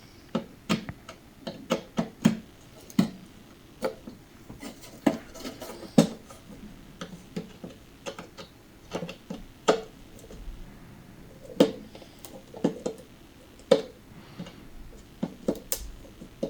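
Metal hardware being taken off an old guitar: irregular sharp clicks and clinks of small metal parts knocking against the instrument and being set down on a hard surface, some with a short ring.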